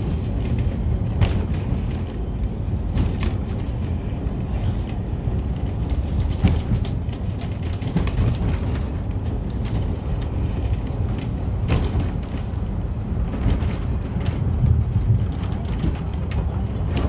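Duquesne Incline funicular car riding up its track: a steady low rumble with occasional sharp clicks and creaks.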